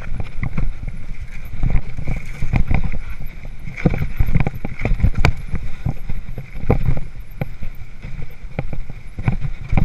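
2013 Haro Flightline Sport 26-inch hardtail mountain bike rattling over a rocky trail: irregular clicks and knocks from the frame, chain and wheels over a low rumble.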